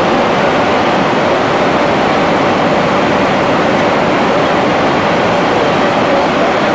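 Steady, loud cabin noise of an airliner in flight, an unbroken even rush heard from inside the cabin.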